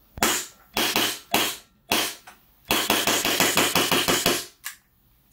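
Glock 35 gas blowback airsoft pistol firing on semi-auto, each shot a sharp crack of gas with the slide cycling. Four single shots come about half a second apart, then a rapid string of shots for nearly two seconds, then one last shot.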